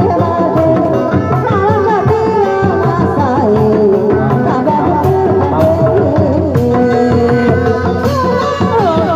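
Sundanese street-procession folk music: hand drums keep up a dense beat under a wavering sung melody.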